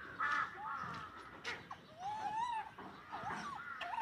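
A string of short animal calls, each rising and falling in pitch, several in quick succession.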